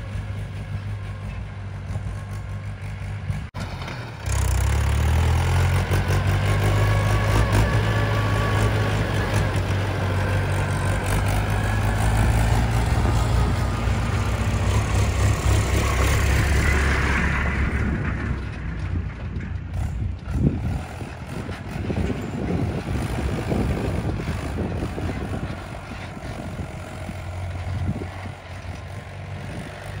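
Mahindra 475 DI tractor's diesel engine running under load as it pulls a heavily loaded trailer of soil. The sound jumps louder about four seconds in and stays loud until past halfway, then eases off, with scattered knocks and rattles in the second half.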